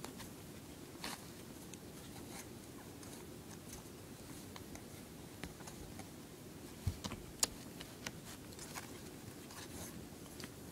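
Puppy scrabbling with its claws at the wall beside it and shuffling on towels: scattered light scratches and rustles, with two sharper knocks about seven seconds in.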